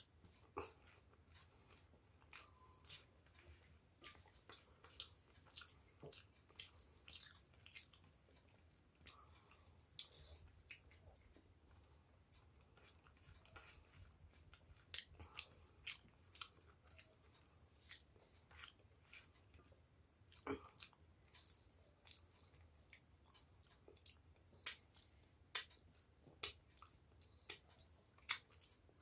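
A person chewing and smacking their lips while eating curry-soaked food by hand, then licking their fingers. Sharp wet mouth clicks come at irregular intervals, several a second, and are louder near the end.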